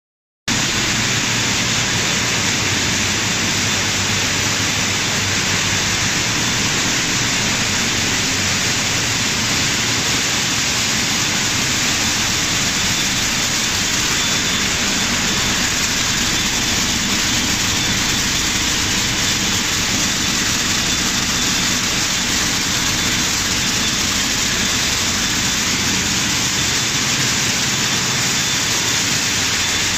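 Dried-shrimp optical sorting line running: a steady hiss of conveyor belts, blower fans and dried shrimp pouring from belt to belt, with a faint, steady high-pitched whine.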